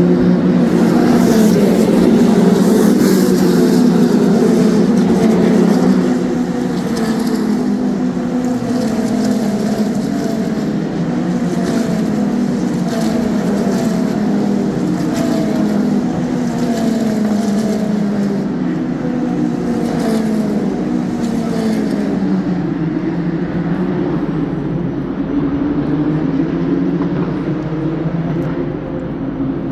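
Single-seater race car engines running on the circuit, their pitch sliding down again and again. Loudest in the first six seconds, then a little quieter.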